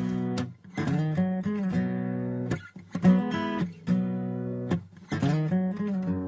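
Background music: a song intro of strummed guitar chords changing every second or so.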